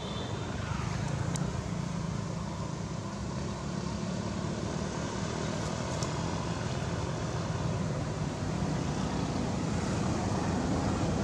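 Steady drone of road traffic, with a low engine hum that rises and falls a little.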